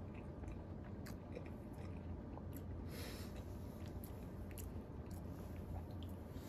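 A person chewing a mouthful of Chick-fil-A fries, with small wet mouth clicks over a steady low room hum. There is a short hiss about three seconds in.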